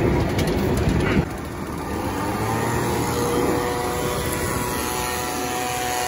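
An engine running: a loud low rumble that changes abruptly about a second in to a steadier, quieter hum with faint steady tones.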